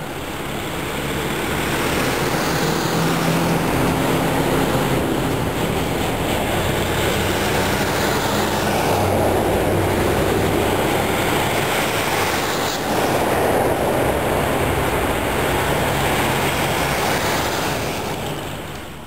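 Heavy diesel trucks hauling railcars on trailers pass slowly below, a steady mix of engine drone and tyre rumble. It builds over the first couple of seconds, holds, and fades near the end.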